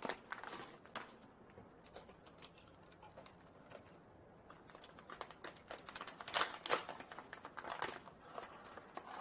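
Crinkling and crackling of a freeze-dried food pouch being handled and opened, in short bursts, loudest about six to eight seconds in.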